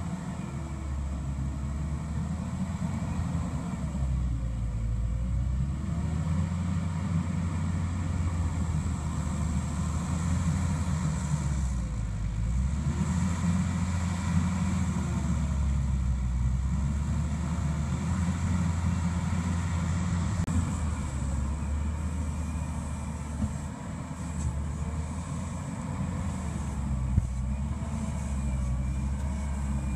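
Mustang MTL325 compact track loader's diesel engine running under load as it pushes dirt, the engine note shifting up and down with the work. There is a single sharp knock near the end.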